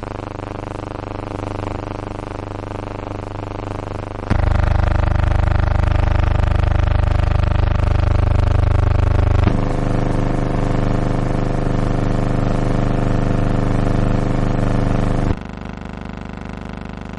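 A steady buzzing hum made of many even tones, with no music or speech. It jumps abruptly louder about four seconds in, shifts in tone about nine and a half seconds in, and drops back quieter about fifteen seconds in.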